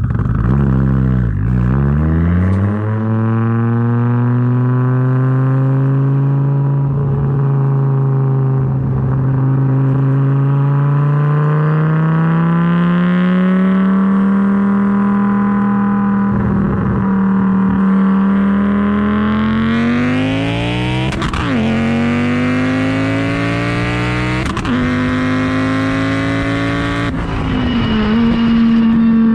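Audi S4's built 2.2-litre AAN turbocharged five-cylinder engine through a full 3-inch exhaust with no muffler, heard at the tailpipe. It holds a steady note while cruising, then from about two-thirds in climbs hard under full acceleration, its pitch dropping sharply at a couple of gear changes.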